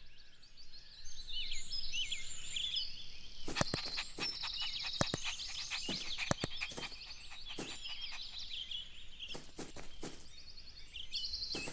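Birds chirping and trilling in a garden ambience: short whistled chirps that fall in pitch, and quick buzzy trills. Several sharp clicks come in between, around the middle.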